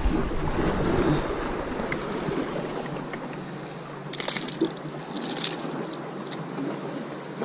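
Surf washing against a rocky shore, with wind on the microphone, a steady rushing noise. About four seconds in, and again about a second later, come two brief, sharp bursts of noise.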